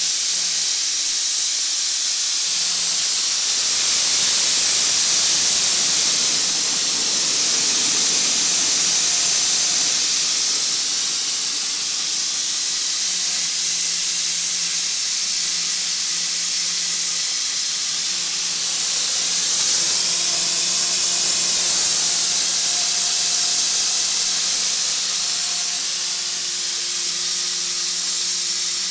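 Steam boiler's pop-off (safety) valve blowing off steam in a loud, steady hiss, the sign that the boiler has reached its 100 psi relief setting. A faint low hum comes and goes underneath.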